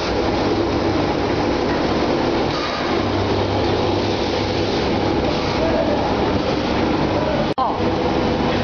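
Egg tray production line machinery running with a steady drone and hum, broken for an instant about seven and a half seconds in.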